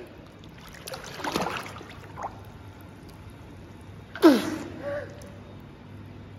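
A toddler gasping for breath while swimming in a pool. The loudest gasp, a short sound falling in pitch, comes about four seconds in, after a softer noisy breath or splash about a second in.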